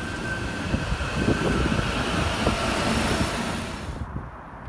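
SEPTA electric commuter train passing at close range, its wheels rumbling and clattering over the rails. The sound eases off as the last cars go by and thins abruptly about four seconds in.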